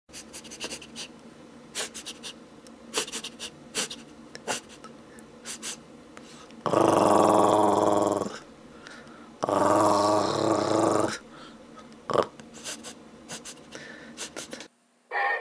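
A dog growling twice, each growl about a second and a half long, with scattered faint clicks before and after.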